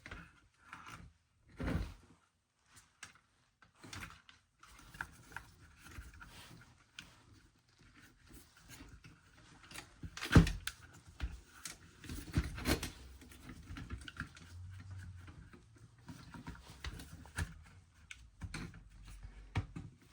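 Plastic parts and cables of a Roomba i7 robot vacuum being handled and fitted back together by hand: scattered clicks, taps and knocks, the loudest a sharp knock about ten seconds in.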